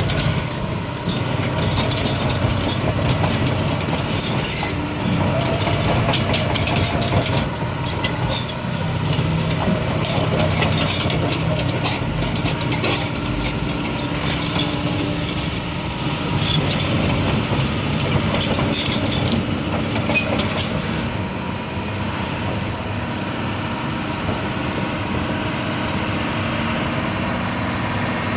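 Doosan DX225 excavator's diesel engine running, with frequent sharp metallic clanks and clicks over it. The clanking stops about three quarters of the way through, leaving only the steady engine.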